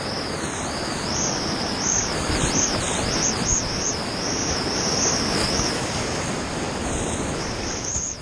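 Whitewater rapids rushing and splashing steadily around a kayak, heard close up from a camera mounted on the boat.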